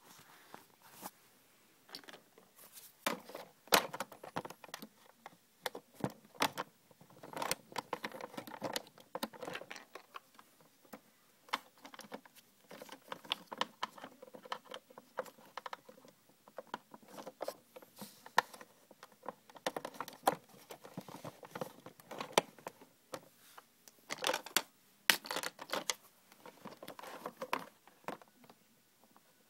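Hard plastic pieces of a Hot Wheels Car Wash playset being handled and fitted together: irregular clicks, knocks and rustles, busiest about a quarter of the way in and again near the end.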